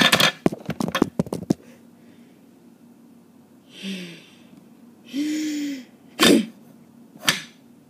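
Quick clicks and clatter of small plastic toys being handled, then two short breathy blasts of a child's voice, the second with a brief voiced sound, and two sharp knocks of toys on a wooden table near the end.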